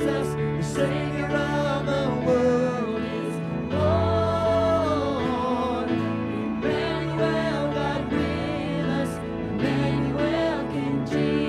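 Church worship music: a band plays held chords while singers carry a wavering melody.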